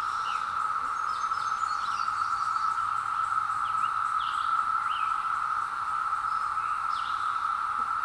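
Chorus of Brood X 17-year periodical cicadas: a steady, unbroken drone, with short bird chirps scattered over it.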